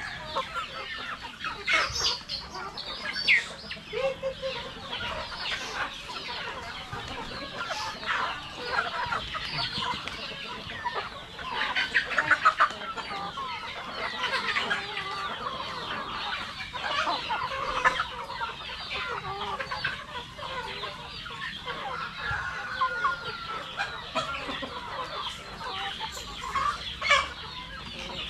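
A large flock of Rhode Island Red chickens clucking and calling together, many birds overlapping, louder in a cluster about halfway through.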